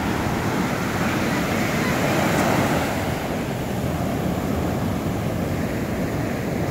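Ocean surf: waves breaking and foamy whitewater rushing over the shallows, swelling a little louder about two seconds in.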